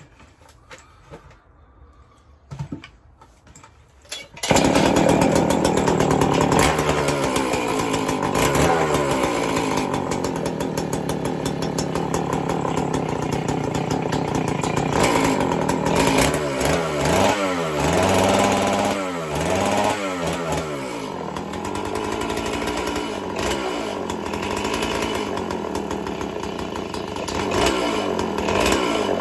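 Homelite 410 two-stroke chainsaw catching about four seconds in and then running loud, with repeated throttle blips rising and falling in pitch from about halfway. It is running rich on a freshly fitted MS660 intake boot.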